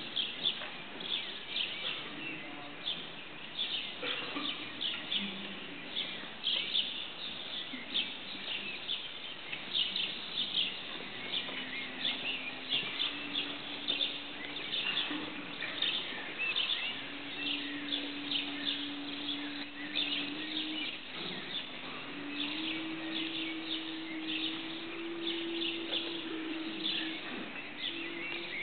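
Many birds chirping constantly, a dense stream of quick high chirps. From about halfway a faint male voice holds long chanted notes, moving slowly upward in pitch.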